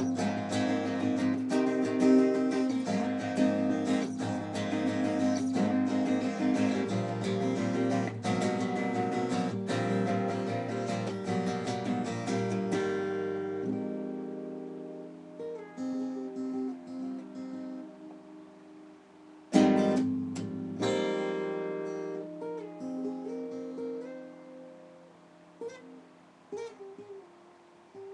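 Acoustic guitar played solo: steady strumming for about the first half, then it thins to a few picked notes left ringing. About two-thirds of the way through, one loud strummed chord rings out and fades.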